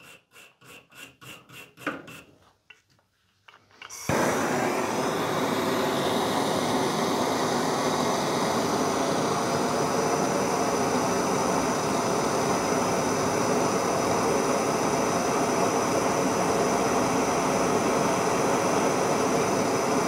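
Stainless steel wire brush scrubbing aluminum coil tubing in quick, rhythmic strokes. About four seconds in, a propane torch flame starts suddenly and runs with a steady hiss, heating the aluminum tubing for a solder repair of a leak.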